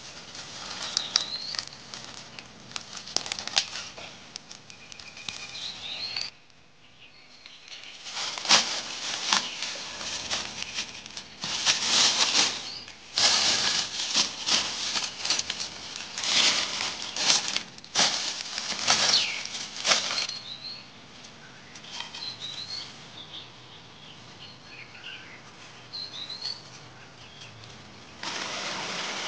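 Dry leaf litter and undergrowth rustling and crackling in irregular bursts as a tuber is dug out of the soil by hand and with a stick, with a bird chirping briefly now and then. In the last second a steady hiss of water takes over.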